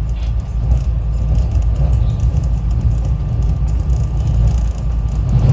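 SEPTA Regional Rail train running at speed, heard from inside the passenger car as a steady low rumble.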